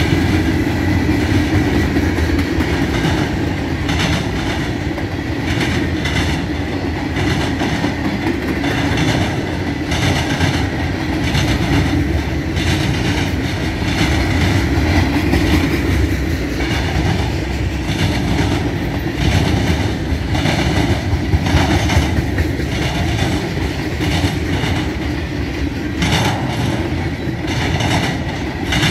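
Freight train cars rolling past close by: a steady, loud rumble of steel wheels on rail, with repeated clicks as the wheels cross rail joints.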